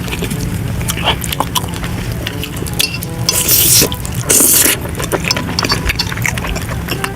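Close-miked eating sounds of fried eggs: wet chewing and smacking clicks, with two louder slurps near the middle.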